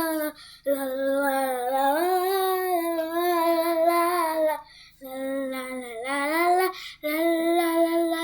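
A child singing "la la" on long held notes without accompaniment, in three phrases with short breaths between them.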